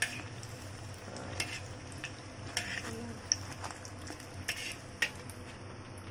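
Spring rolls sizzling as they deep-fry in hot oil in a wok, with scattered light clicks of metal utensils as they are turned over.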